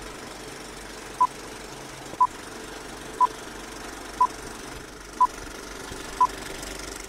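Film-leader countdown beeps: six short, identical high beeps, one each second, over a steady rattling whirr and hiss like a film projector running.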